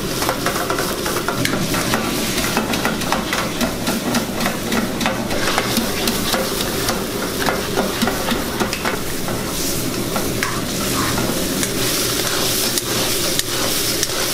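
Mutton karahi sizzling and frying in a wok-shaped karahi pan over a high gas flame, with a metal spatula scraping and clacking against the pan again and again as it is stirred.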